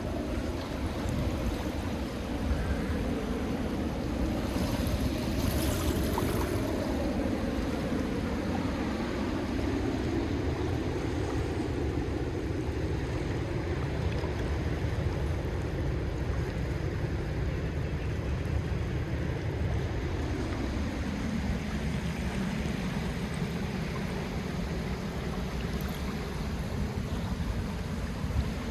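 Calm sea waves washing gently onto a shell beach: a continuous water wash that slowly swells and eases, with a brief brighter hiss about five seconds in.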